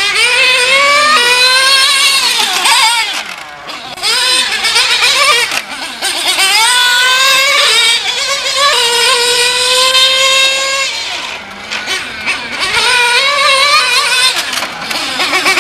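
Two-stroke glow nitro engine of a Kyosho Inferno GT3 1/8-scale RC car running at high revs, rising in pitch in long pulls under throttle and dropping back briefly twice as the throttle eases, then climbing again.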